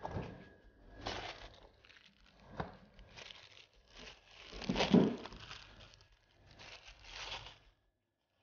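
Plastic wrap crinkling and rustling in several irregular bursts as it is handled and peeled off the chilled craquelin dough, with one sharp click about two and a half seconds in.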